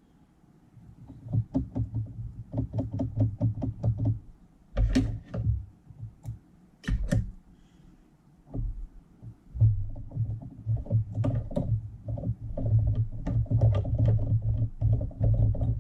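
Hand work at a rotary fly-tying vise: runs of quick light clicks and small knocks as the vise and tools are handled, with two louder knocks in the middle. A low steady hum with ticking runs through the second half.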